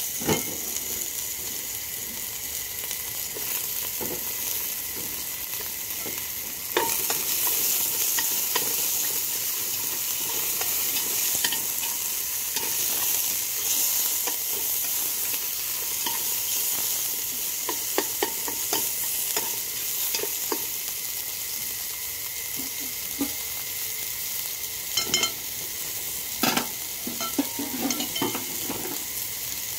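Sliced shiitake mushrooms and shallots sizzling in a hot metal pot as they are stirred with chopsticks, with scattered clicks and taps of the chopsticks against the pot. The sizzle gets louder about seven seconds in.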